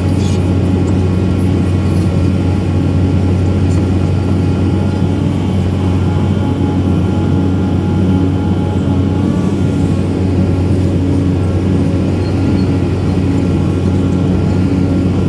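Excavator diesel engine running steadily with a constant low drone.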